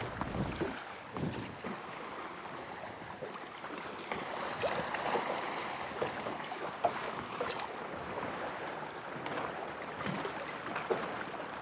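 Choppy sea water lapping and slapping against the hull of a drifting boat, with light wind on the microphone and a few small splashes.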